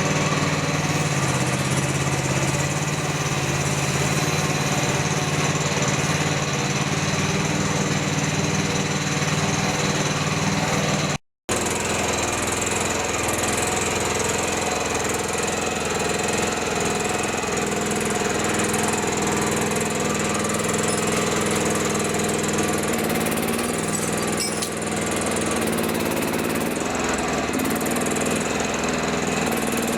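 An engine running steadily at a constant speed. The sound drops out for a moment about eleven seconds in and then carries on at a slightly different pitch.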